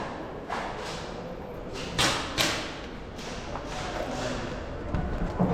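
A few dull thumps over a rustling background; the loudest two come close together about two seconds in.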